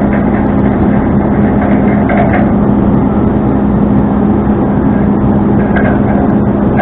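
Tow truck engine running steadily, a constant low drone.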